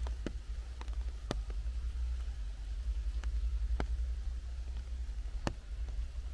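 Scattered raindrops dripping from the forest canopy, sharp single ticks at irregular spacing about once a second, over a steady low rumble.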